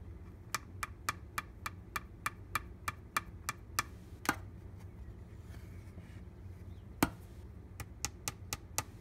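A run of sharp, light clicks at about three a second, then a louder single click, a pause with another click, and a second quick run of clicks near the end.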